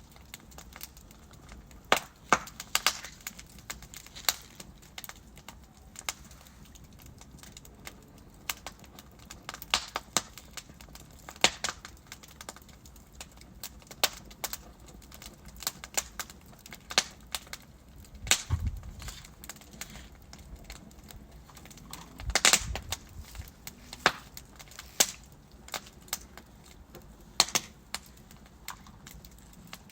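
Wood fire in a fireplace, logs burning with irregular sharp crackles and pops over a low hiss. Louder pops come in clusters, with a dull low thump about halfway through.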